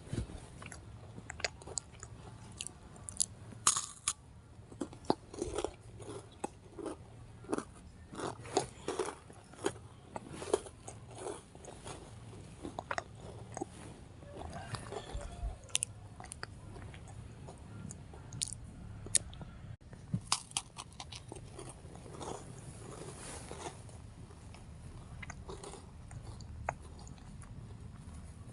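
Crunchy chewing: a steady run of irregular, short crunches, as of something hard and dry being bitten and chewed.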